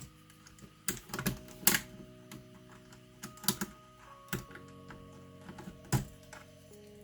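Irregular sharp plastic clicks and clacks from a Keychron K4 V2 mechanical keyboard as its keycaps are worked off with a keycap puller, over soft background music.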